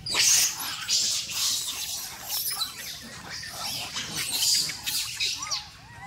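Rhesus macaques shrieking and squealing in a scuffle within the troop. A burst of shrill cries starts suddenly and comes back in repeated waves.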